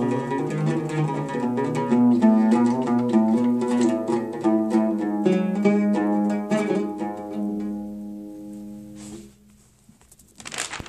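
Oud being played: a quick run of plucked notes that slows, with the last notes ringing out and dying away about nine seconds in. A short rustling noise follows near the end.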